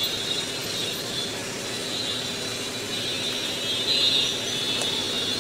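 Steady street traffic noise: a continuous hum of passing vehicles.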